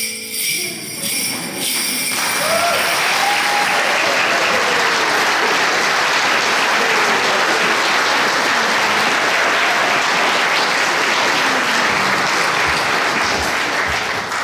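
The song's last ringing notes die away in the first two seconds. Then an audience breaks into steady, sustained applause, with a few voices whooping in it early on.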